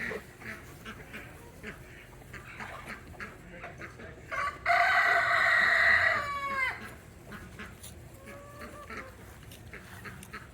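A rooster crowing once, a single call of about two seconds about halfway through that falls in pitch at the end, with softer fowl calls and clucking around it.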